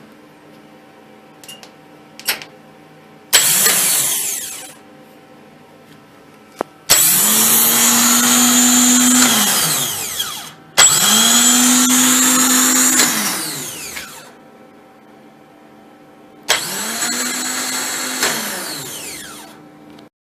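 Repaired Nissan R'nessa starter motor run free four times: one brief burst, then three runs of a few seconds each. Each time it whirs up to a steady speed with a high whine and winds down when power is cut.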